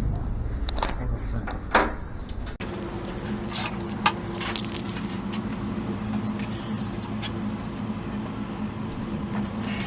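Workshop background noise: a low rumble with a couple of sharp metallic clicks, then, after an abrupt cut, a steadier hum with scattered light clinks of metal, like tools or keys being handled.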